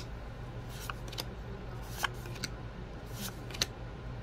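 Magic: The Gathering cards being flipped through one at a time in the hand, each card slid off the stack with a short, crisp click, about seven times at uneven intervals, over a steady low hum.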